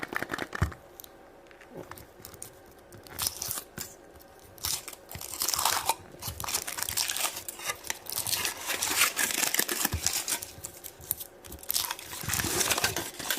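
Foil wrapper of a large Kinder Surprise chocolate egg being torn and crinkled off, in irregular crackling bursts with a few sharp cracks.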